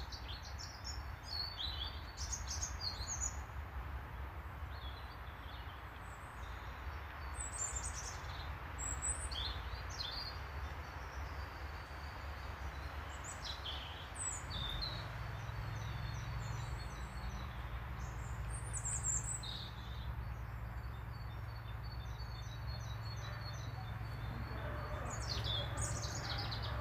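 Small songbirds chirping and singing in short, repeated high phrases over a steady low rumble. A second low, steady hum joins about halfway through.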